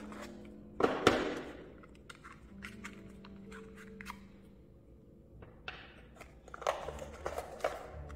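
Hands handling cardboard and paper packaging and a plug charger while unboxing tablet accessories: rustling, clicks and knocks, loudest about a second in, with more rustling near the end. Faint background music plays underneath.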